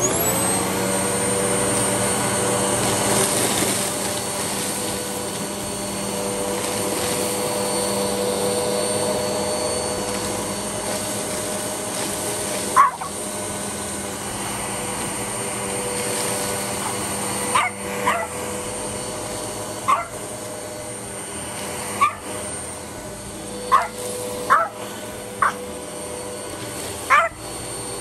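MOOSOO U1400-PLUS 1400 W upright vacuum switched on, its motor spinning up to a steady whine as the power brush runs over carpet. From about halfway on, several short, sharp sounds cut in over the motor.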